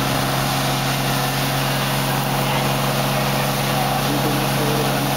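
Fire engines' engines running steadily to drive their pumps, a constant drone under the hiss of water streams from hose lines and a deck gun.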